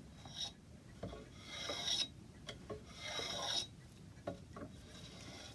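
Hand tool shaving an oak moulding: three rasping cutting strokes, the two longest about half a second each, with light knocks of the tool on the wood between them.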